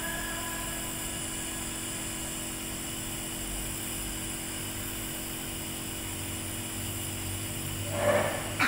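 Nebulizer compressor running steadily, a constant mechanical hum with a hiss, as it turns liquid medicine into mist for a breathing treatment. A brief louder sound rises near the end.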